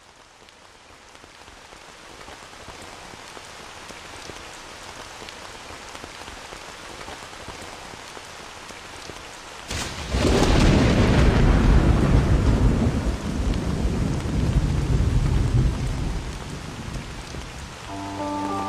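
Steady rain fading in, then a sudden thunderclap about halfway through that rolls on as a long low rumble and dies away. Music begins near the end.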